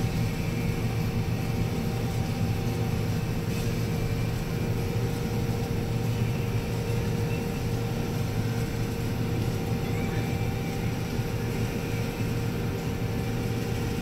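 Combine harvester running steadily under load while cutting soybeans, heard from inside the cab: an even low drone from the engine and threshing machinery, with a faint steady whine above it.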